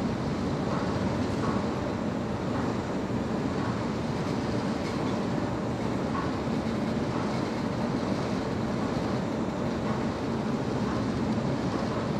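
A train moving along the track: a steady rumble of engine and rolling cars, with a few faint clicks.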